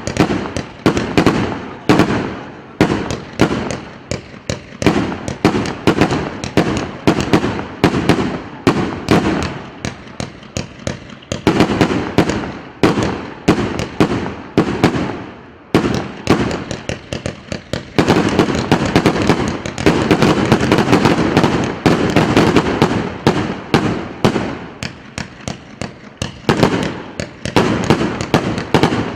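A 288-shot, 1.2-inch consumer firework cake firing in a rapid, continuous string of sharp reports, several a second, with a brief lull about two-thirds of the way through.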